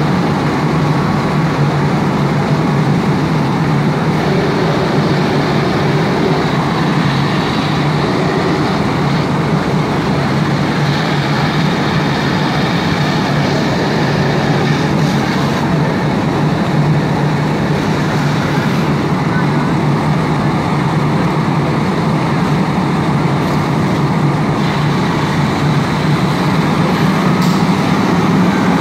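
Fire engine's diesel running steadily with a constant low hum.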